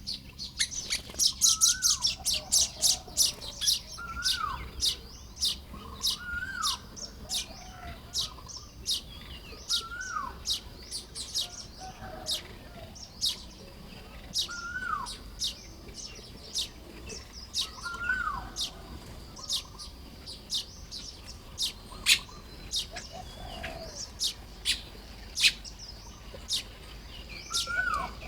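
Baya weavers chattering at their nests: many sharp, high chips, densest in the first few seconds. Under them a lower note that rises and then falls repeats about every two seconds.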